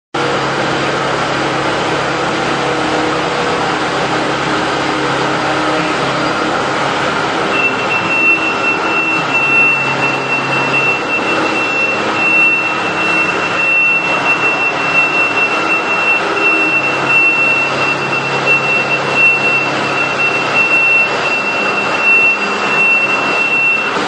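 Kubota DC-70 combine harvester's diesel engine running steadily while the tracked machine moves. About eight seconds in, a steady high whine joins and holds.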